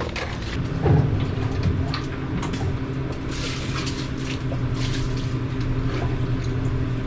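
Concrete mixer's engine running steadily with a low hum, with scraping and a few knocks from the concrete being mixed and shovelled.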